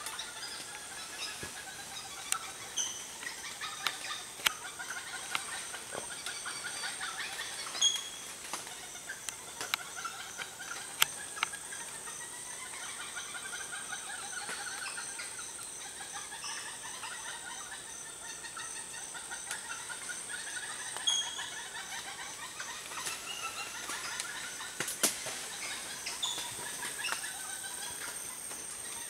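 A group of red uakari monkeys calling: many short, high calls in quick runs, overlapping throughout, with scattered sharp clicks.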